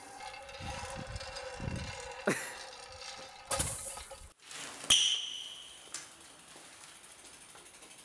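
A person falls off a playground rope swing and lands on gravel with a loud crunching impact about three and a half seconds in. After a sudden cut there is a sharp metallic click with a short ringing ping, then the faint ticking of a BMX bike's freewheel.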